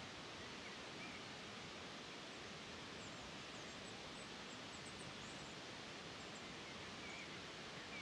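Faint steady outdoor background hiss, with a few faint, high, short bird chirps scattered through it.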